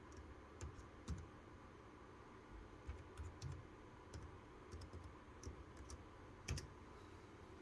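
Faint, irregular clicks of computer keys being pressed, a dozen or so scattered through, the loudest about six and a half seconds in.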